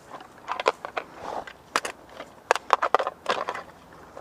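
Irregular crunching and crackling close to the microphone, like dry leaves and twigs underfoot.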